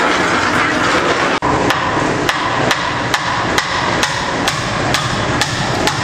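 Hammer blows on a building site, struck at a steady pace of about two a second. They begin just after a brief dropout a second and a half in, over a steady rushing background noise.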